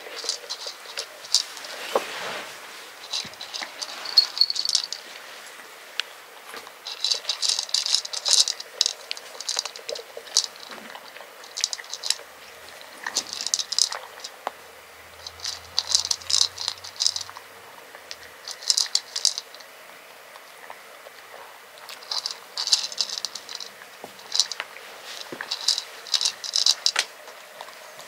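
A cat crunching dry kibble from a plastic bowl: crisp crunching in bursts of a second or two, with short pauses between.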